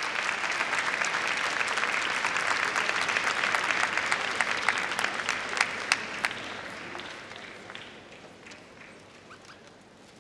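Large arena crowd applauding, a dense clapping that holds for about six seconds and then dies away.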